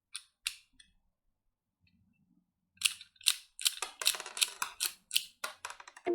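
Sharp mechanical clicks from a miniature toy M416 rifle being worked by hand: a few single clicks at first, then, about three seconds in, a quick run of about a dozen clicks at roughly four a second.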